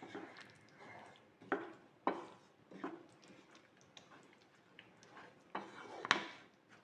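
Wooden spatula stirring and scraping thick chilli paste around a non-stick pan, a handful of separate strokes with faint small ticks between them.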